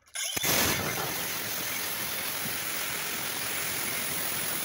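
Angle grinder with a cut-off disc grinding through the protruding end of a metal bolt, starting abruptly just after the beginning and then running steadily.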